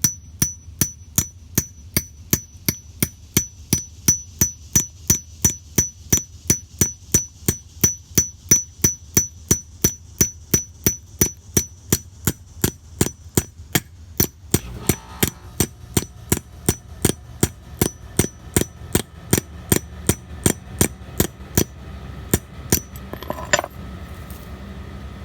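Hammer striking a 12 mm wrench in a steady run of about two blows a second, each with a high metallic ring, driving a short piece of PEX tubing into a 1993 Ford F-150's door striker hole as a new bushing. The blows stop shortly before the end.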